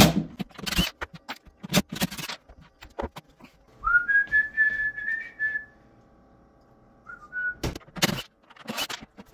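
Sparse knocks and clunks from handling a wall cabinet and a cordless drill. About four seconds in comes a high, thin, whistle-like tone that rises slightly and holds for about two seconds, with a shorter one about seven seconds in.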